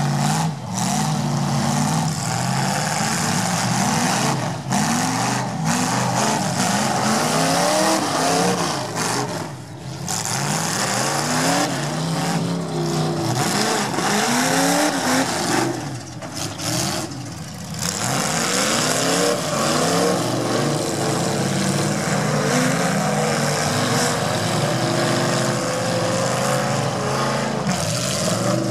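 Several demolition derby cars' engines revving together, their pitch rising and falling again and again as the cars accelerate and reverse.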